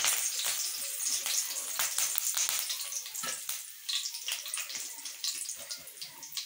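Curry leaves sizzling and crackling as they deep-fry in hot oil, a dense spatter of pops that slowly dies down.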